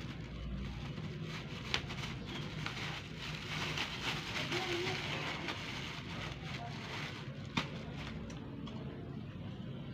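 Thin plastic bag of bait powder crinkling and rustling as its knotted neck is twisted and worked open by hand, with a sharp tick just under two seconds in and another about three quarters of the way through.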